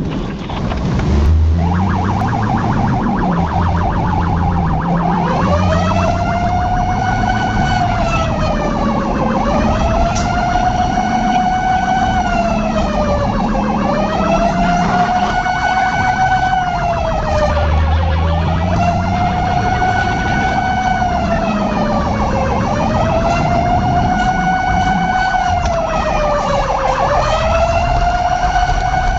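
Fire truck siren: a fast warbling for the first few seconds, then a slow wail that rises and falls about every four seconds, over a low vehicle engine rumble.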